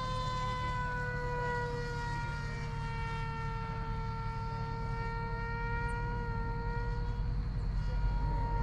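Radio-control model airplane flying overhead: a steady high-pitched motor and propeller drone that sinks a little in pitch over the first few seconds and then holds, over a low rumble.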